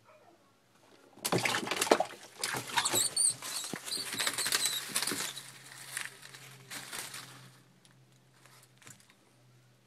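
Scuffling and crackling in dry leaf litter as a Nile monitor goes after a brown mouse: a dense burst of rustling starts about a second in, runs for about four seconds, then fades to scattered rustles.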